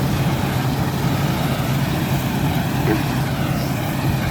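Combine harvester running steadily while harvesting oats: a continuous, loud, low engine drone over a wash of machine noise.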